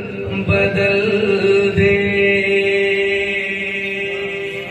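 A man singing a naat, the Urdu devotional poem, holding one long, steady note that slowly fades near the end.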